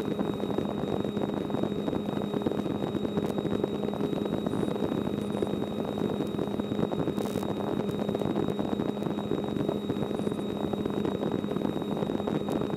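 Steady drone of a light rotorcraft's engine and rotor, heard from inside the cabin, with a thin steady high whine over it.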